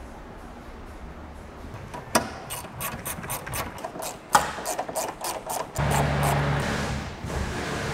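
Ratchet wrench clicking in a quick run of short strokes while tightening the wiper linkage's mounting bolts. A low steady hum comes in near the end.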